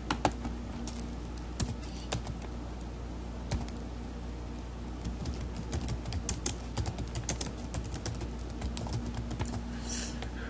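Typing on a keyboard: a few scattered key clicks, then a quick run of keystrokes from about five seconds in, over a faint steady low hum.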